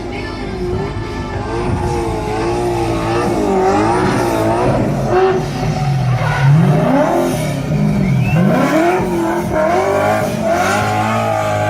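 Holden Commodore drift car's engine revving hard, its pitch swinging up and down, with a strong rise about two thirds of the way through, over tyres squealing as it drifts.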